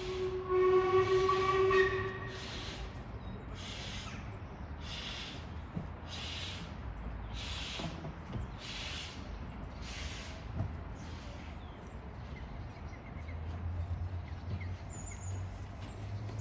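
A steam locomotive gives a short whistle, then works away with slow exhaust chuffs about one a second that fade into the distance. A low rumble rises near the end.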